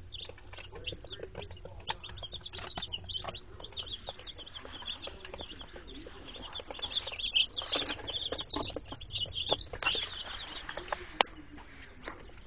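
A brood of Black Sex Link pullet chicks peeping nonstop, a dense chorus of short high chirps that grows louder past the halfway mark. There is one sharp click near the end.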